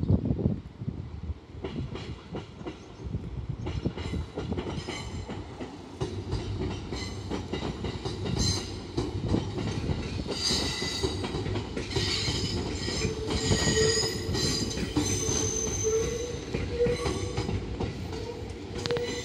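JR Central 313-series electric train passing: a steady rumble of wheels on the track, with clattering that builds after the first few seconds. A steady whine joins in over the last few seconds.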